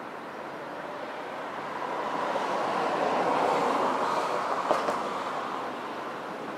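EPL2T electric multiple unit approaching on the rails: a rushing wheel-and-rail noise that swells to its loudest a little past the middle and then eases, with one sharp clack about two-thirds of the way through.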